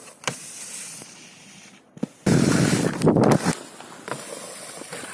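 Skis sliding across a snow-park box, a scraping hiss with a few short knocks, louder for about a second in the middle of the stretch.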